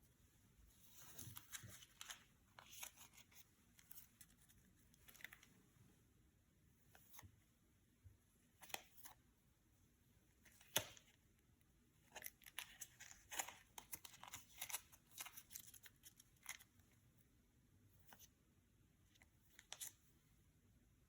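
Yu-Gi-Oh trading cards and their booster-pack wrappers being handled: on and off crinkling and tearing rustles with sharp clicks, the loudest single click about eleven seconds in.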